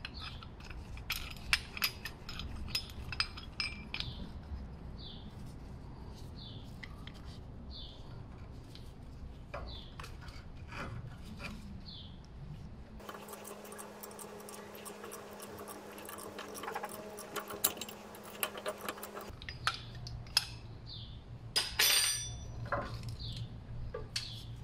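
Metal tools clinking and clicking against a car's rear brake caliper as a piston-retraction tool is fitted and wound in to push the caliper piston back for new pads. A run of fast clicking lasts about six seconds in the middle, and a few louder clinks come near the end.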